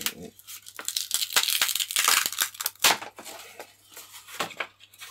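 Epoxy-repaired model glider wing section being pulled free of the tape-covered work board it set on, crackling and tearing loose in a dense run of small cracks. It is loudest from about one to three seconds in, with a sharp snap near three seconds.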